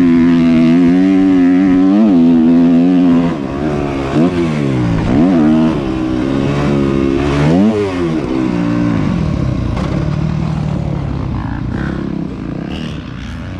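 Motocross dirt bike engine running hard on the track. The revs swoop down and back up several times as the throttle is chopped and reopened over jumps and corners. Past the middle it settles into lower, steadier running and fades near the end.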